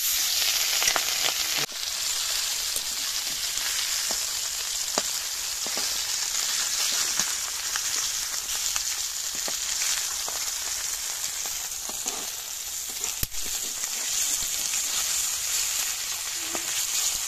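Katla fish pieces sizzling steadily as they fry in hot oil in a metal wok, with a few sharp clicks and scrapes of a metal spatula turning them.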